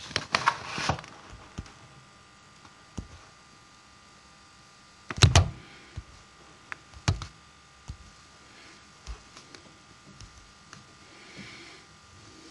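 Sparse clicks of digits being entered on a computer: a quick cluster in the first second, a louder double click about five seconds in and another about seven seconds in, with faint room tone between.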